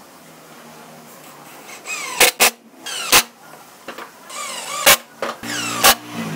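Cordless driver driving screws into pine wood in two runs, its motor whine rising in pitch as it speeds up, with several loud sharp clacks as the screws are driven and seat.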